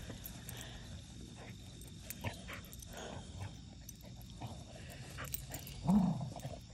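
A basset hound and a small puppy play-wrestling in grass: soft grunts and scuffling, with one short, louder dog cry rising in pitch near the end.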